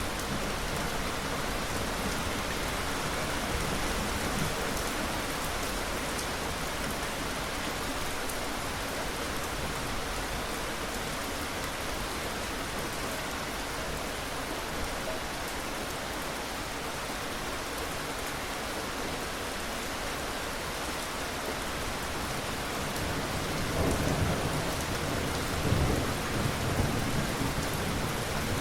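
Steady heavy rain falling, with low thunder rumbling in twice near the end.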